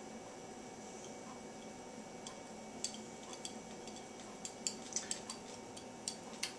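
Small, sharp metal clicks and taps from handling a pocket watch's case and parts, scattered irregularly from about two seconds in, over a faint steady hum.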